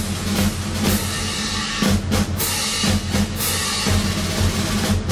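Drum-heavy music: frequent hard drum and cymbal hits over steady low sustained notes.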